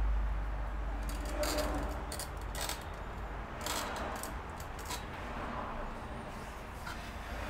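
Handling noises: a scattering of short clicks and rustles over a low hum that fades away in the first second or so.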